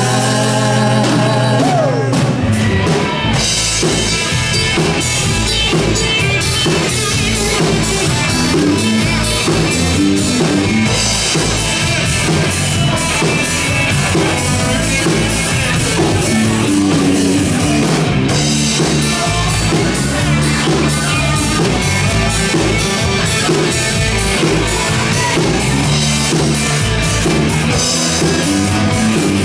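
Live rock band playing: electric guitar, electric bass and drum kit, loud and steady, with the drums keeping a regular beat.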